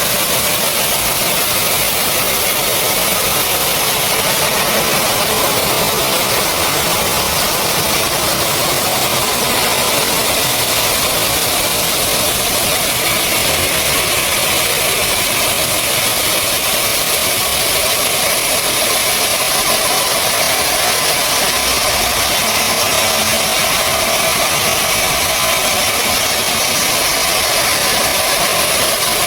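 A machine running steadily and loudly without let-up, a constant engine-like noise with much hiss in it.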